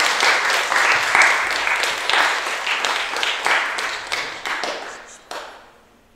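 Audience applauding with many hand claps. The clapping thins out over the last couple of seconds and ends with one late clap about five seconds in.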